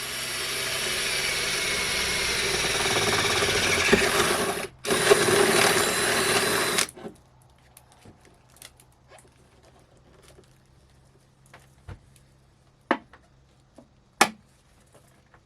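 Power drill running under load, drilling a hole through the van's sheet-metal body. It runs for about five seconds, stops briefly, runs again for about two seconds and stops, followed by a few light clicks and knocks.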